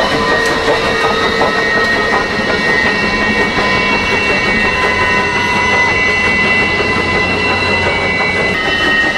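Train running along the track: a steady noise with several steady high tones over it, and brief higher tones that come and go partway through.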